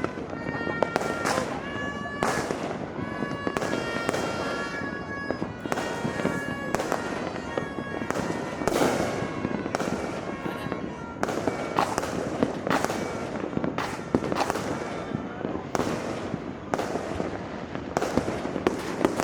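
Fireworks and firecrackers going off without pause: dense, irregular bangs and crackling. Several held whistle-like tones sound over the first several seconds.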